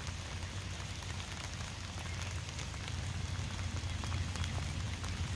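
Steady rain falling: an even hiss with many small, scattered drop ticks over a low rumble.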